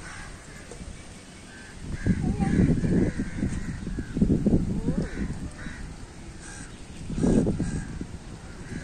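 Crows cawing repeatedly, a string of short harsh calls, with bursts of low wind rumble on the microphone about two, four and seven seconds in.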